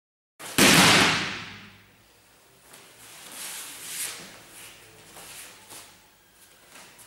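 A judoka thrown with koshi guruma (hip wheel) lands on the tatami in a breakfall about half a second in: one loud slap-thud that rings out over about a second in the hall. Soft rustling of judo jackets and bare feet shuffling on the mats follow as he gets up.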